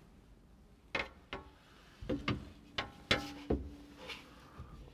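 The front glass pane of a John Deere 35G mini excavator cab being slid into its frame: a string of knocks and clunks, a few followed by a brief ring, as the tight-fitting pane is worked into place.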